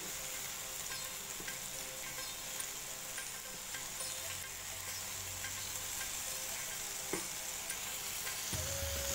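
Seekh kebabs sizzling in butter on a hot electric grill plate, a steady hiss, with light clicks and scrapes of a spatula as the kebabs are turned over; one click stands out about seven seconds in.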